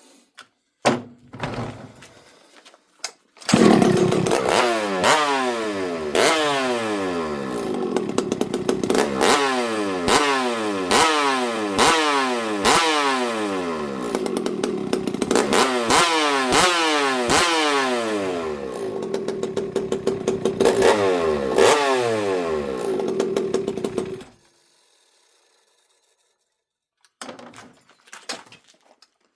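Two-stroke chainsaw starts about three seconds in and is revved over and over, each rev falling back toward idle, then cuts off suddenly about twenty seconds later. The carburettor is set a little on the rich side.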